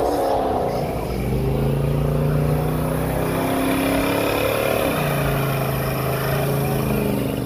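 Classic convertible's engine held at high revs during a burnout, its rear tyres spinning on pavement. The revs ease off briefly about four and a half seconds in, then climb again.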